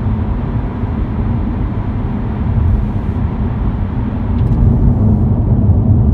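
Steady road and engine rumble inside a moving car, growing a little louder about two-thirds of the way through.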